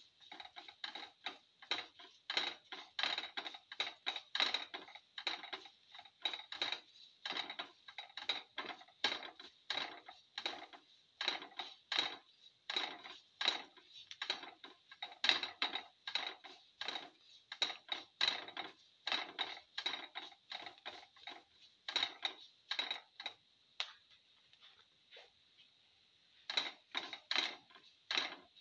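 A slotted spatula scraping and stirring mustard seeds, cumin seeds and ginger around a frying pan, in quick strokes about two or three a second. The strokes stop for about two seconds near the end, then start again briefly.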